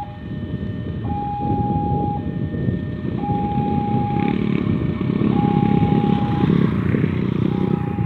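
A level-crossing warning alarm sounds, a higher electronic tone and a lower one taking turns about once a second, warning that a train is coming and the barrier is about to close. Under it is the steady low engine noise of motorcycles riding over the crossing, louder in the second half.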